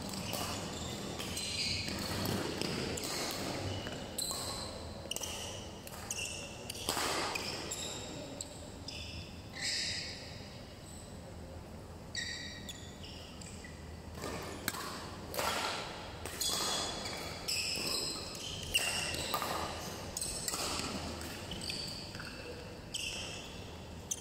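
Badminton play: rackets striking the shuttlecock in short, sharp hits, mixed with brief high squeaks of shoes on the court floor.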